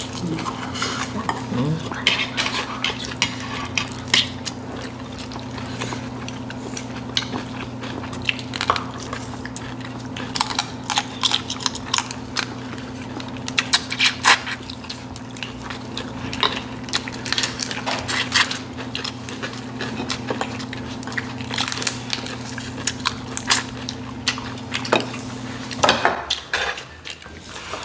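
Chopsticks and spoons clicking and clinking on dishes while soy-sauce marinated raw crab is eaten, with wet smacking and sucking eating noises. A steady low hum runs underneath and stops near the end.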